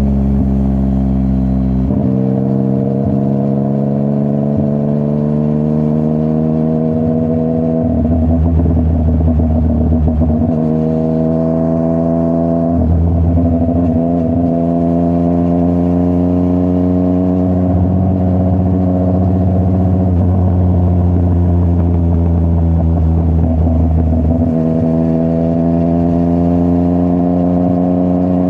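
Yamaha MT-09's CP3 inline three-cylinder engine breathing through a full Akrapovic exhaust, pulling along the road. Its pitch climbs slowly over long stretches, broken by a few short throttle or gear changes.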